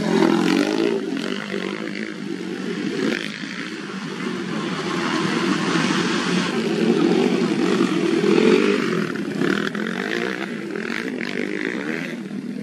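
Several off-road motorcycle engines running and revving together, the pitch rising and falling as the bikes accelerate and ease off.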